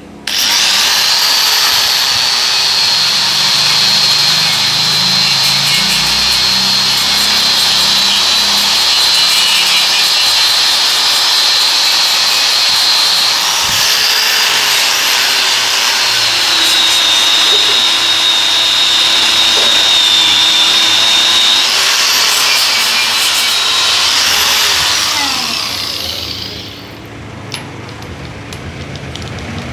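Electric angle grinder with a grey abrasive wheel running against stainless steel, a steady high whine over the grinding hiss that drops a little in pitch about halfway. Near the end it is switched off and winds down.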